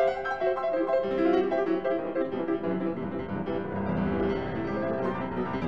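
Background music played on piano, a flowing run of notes with no speech over it.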